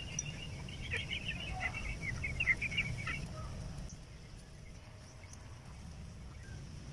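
A bird chirping in a quick run of short, high notes for about three seconds, then stopping, over a low steady background rumble.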